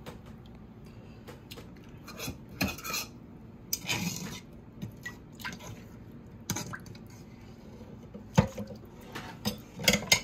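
Kitchen utensils clinking and knocking against dishes and pans in scattered strokes, with one sharp clatter about eight seconds in and a quick run of knocks near the end.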